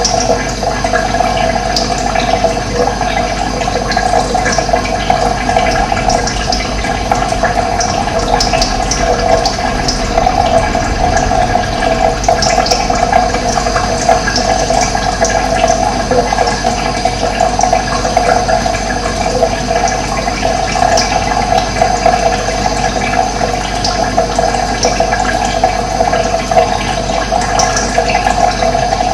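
Running water rushing steadily, with scattered short, high bird chirps over it.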